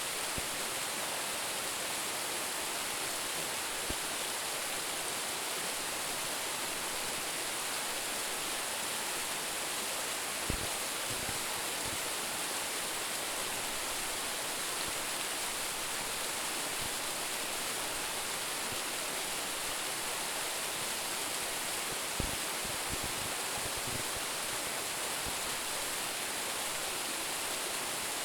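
Waterfall of about a 10 m drop, its water falling and splashing in a steady, even rush. A couple of faint low thumps come through about a third of the way in and again past two-thirds.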